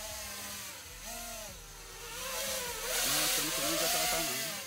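FPV drone's electric motors and propellers buzzing in flight, the pitch rising and falling constantly with the throttle. It grows louder from about two and a half seconds in, then drops away near the end.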